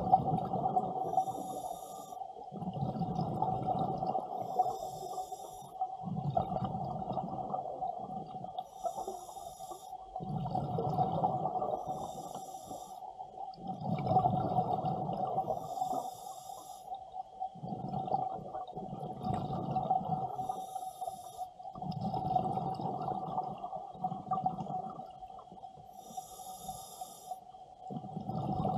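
Scuba diver breathing through a regulator underwater: a hiss from the regulator on each inhale, then a rumble of exhaled bubbles, in slow, even breaths about every four seconds. A steady hum runs underneath.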